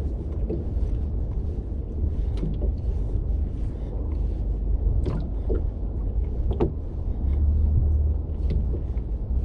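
Ambient sound aboard a small hand-rowed boat on the sea: a steady low rumble of wind and water, broken by several sharp knocks.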